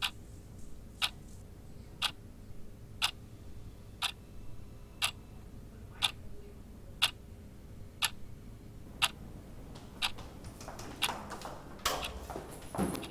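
A clock ticking about once a second in a quiet room. Near the end, a jumble of knocks and clicks as a door opens and people come in.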